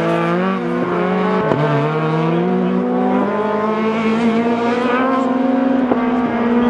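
Ford Escort rally car's engine running hard, its pitch climbing slowly as it pulls, with a few sharp cracks along the way.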